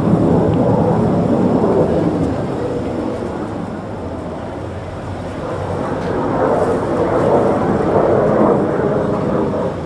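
Military aircraft flying over, heard as a loud rumble that eases off around the middle and swells again in the second half.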